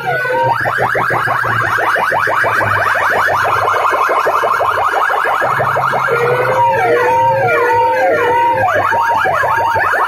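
Electronic siren and alarm sound effects played very loud through banks of horn loudspeakers on a DJ sound rig. A fast, repeating rising sweep is broken twice by a slower warbling siren pattern, once right at the start and again about two-thirds of the way through, over a steady low hum.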